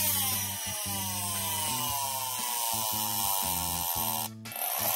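Friction motor of a Monster Jam Rev and Roar toy monster truck whining after a push, falling in pitch as it spins down over about four seconds. It breaks off about four seconds in and starts again. Background music plays underneath.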